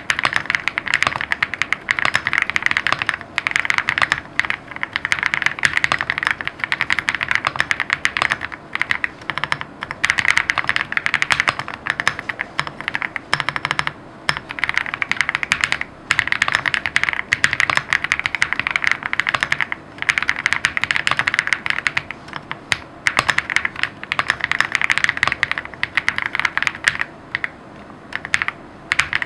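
Fast, continuous typing on a lucky65 v2 custom mechanical keyboard with lubed Kang White v3 switches: a dense run of key clicks in bursts of a few seconds, with brief pauses between them.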